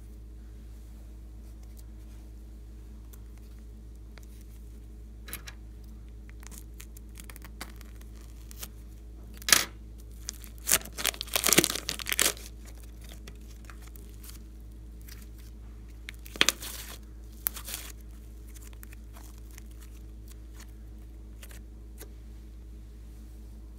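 Thin clear plastic bag crinkling and tearing as it is peeled open off a lump of slime. It comes in short crackling bursts, a dense run about ten to twelve seconds in and another around sixteen to eighteen seconds in.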